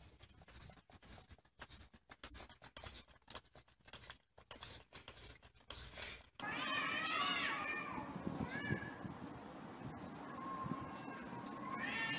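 A plastic spray bottle spritzing in quick short hisses as a cat grabs and bites at it. About six seconds in, a cat starts meowing in long wavering calls that rise and fall, a few times.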